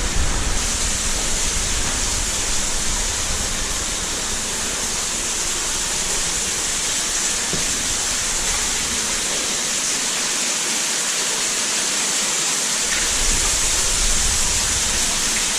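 Cave waterfall splashing in a steady, even rush of falling water.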